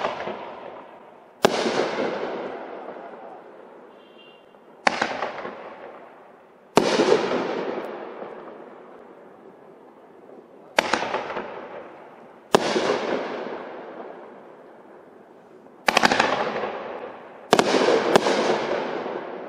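Winda P5418A 'LOL' nine-shot consumer firework cake firing its aerial shells: eight sharp bangs at uneven gaps of about one and a half to four seconds, the last two half a second apart, each trailing off over a second or two.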